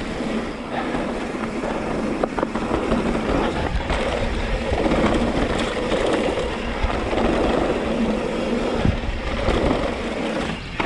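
Mountain bike rolling fast down a dry dirt singletrack: a steady rush of tyre noise on dirt and wind on the handlebar camera's microphone, with a few short clicks and knocks from the bike over bumps.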